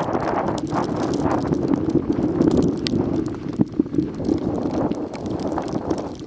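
Footsteps crunching through deep snow at a walking pace, a run of short crunchy steps.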